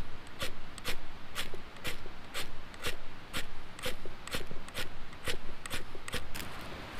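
Flint fire-starter rod struck over and over with a scraper, sharp rasping strokes at about two a second, as sparks are thrown onto a pile of tinder that does not catch.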